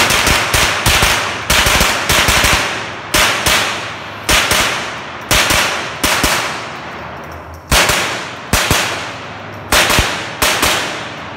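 Semi-automatic .22 LR rimfire rifle fired in quick strings of two to five shots with short pauses between strings, each string followed by a ringing echo from the range walls.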